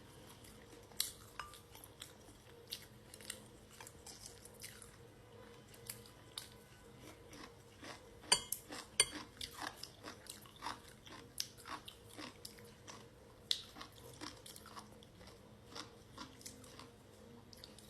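Close chewing of crunchy pickled food, a run of irregular crisp crunches and mouth clicks, with a few sharper crunches about halfway through.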